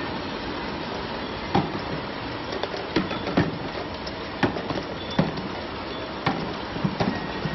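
Automatic shrink-sleeve labeling line running: a steady mechanical noise with irregular sharp knocks and clicks, about one to two a second, from the machine and the bottles on its conveyor.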